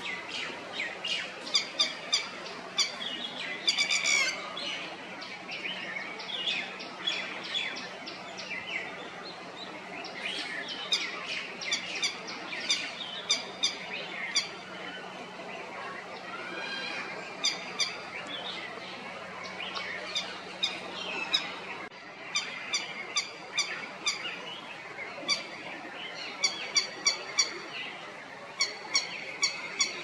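Red-wattled lapwing alarm calls: runs of short, sharp, high notes, several a second, broken by brief pauses.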